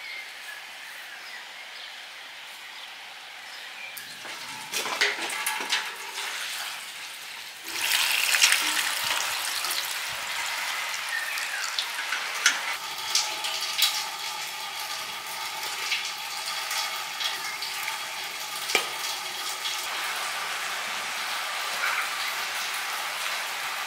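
Water pouring and splashing into a large metal basin of strawberries, starting loudly about eight seconds in, then running on as steady splashing with many small clicks as the berries are washed and handled in the water. The first few seconds hold only quiet outdoor background with a few knocks.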